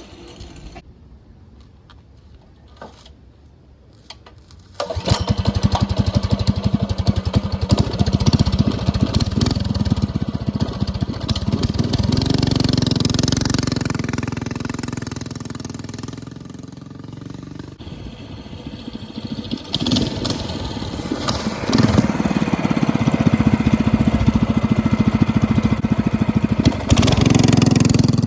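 Minibike's small engine starts abruptly about five seconds in and runs, the revs rising and falling as it is ridden. It fades down partway through, then comes back louder.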